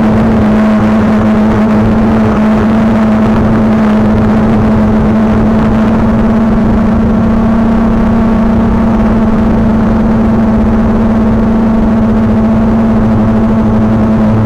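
Quadcopter drone's electric motors and propellers humming at a steady, unchanging pitch in flight, with rushing air noise underneath.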